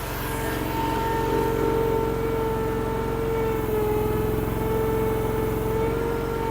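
Derette DRT450 mini skid steer's engine running under load with a steady whine as its hydraulics raise the lift arms and a loaded pallet on the forks toward full height. The whine's pitch sags slightly about four seconds in.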